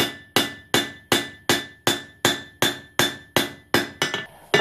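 Hand hammer striking red-hot steel on an anvil: a steady run of about a dozen ringing blows, nearly three a second, with a lighter pair near the end. The blows are rounding the square-section reins of a pair of tongs into an octagon.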